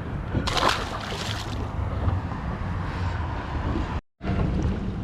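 Wind buffeting the microphone and water moving around a small fishing boat, over a low steady hum. A louder rush of noise comes about half a second in, and the sound cuts out completely for a moment near the end.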